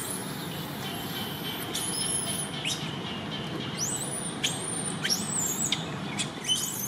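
Young long-tailed macaques giving short, high-pitched squeals, about six in all, each rising sharply, holding briefly and dropping away, with a cluster between about four and six seconds in. A steady low rumble runs underneath.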